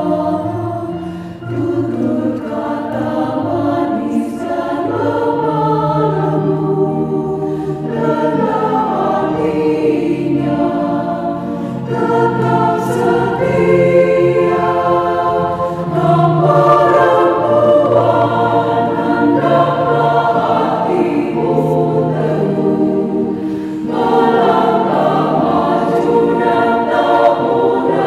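Women's choir singing a church song in Indonesian, many voices together in harmony, phrase after phrase with short breaths between. The voices were recorded separately and mixed into one virtual choir.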